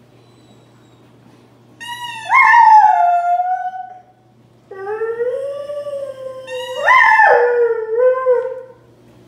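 A hound dog howling twice: a first howl of about two seconds that leaps up and then slides down in pitch, and a longer one of about four seconds that climbs slowly, jumps higher near the end and falls away.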